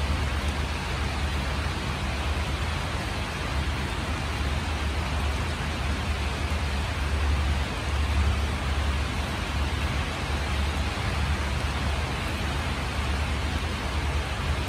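Steady rain falling on leaves, an even hiss with a constant low rumble underneath.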